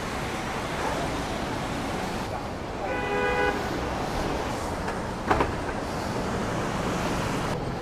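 City street traffic noise with a single car horn honk, about half a second long, about three seconds in, and a brief knock a couple of seconds later.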